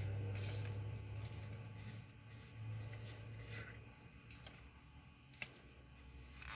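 Faint handling noises of small containers of pearlescent pigment powder being opened: scattered light clicks and rustles, with one sharper click about five seconds in. A low steady hum sounds under the first half and then fades.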